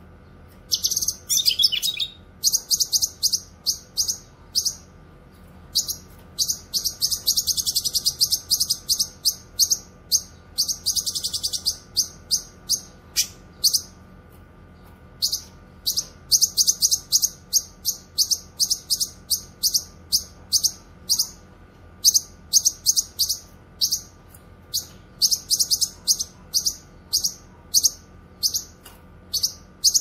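Cucak kinoy (blue-masked leafbird) singing vigorously: fast trains of short, very high chirps broken by brief pauses, over a faint steady hum.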